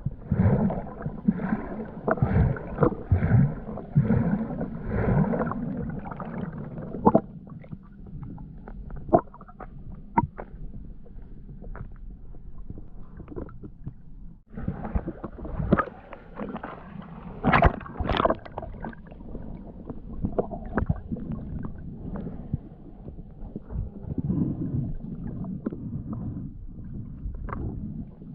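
Muffled rumbling and gurgling of water picked up by a camera under water, with scattered knocks and clicks, a cluster of sharper knocks about two-thirds of the way through.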